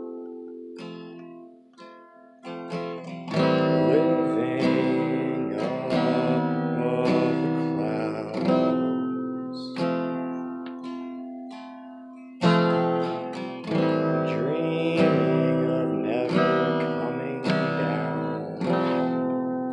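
Steel-string acoustic guitar playing strummed and picked chords that ring out and decay. A chord fades away at first, the playing picks up again about three seconds in, and a hard strum lands about twelve and a half seconds in.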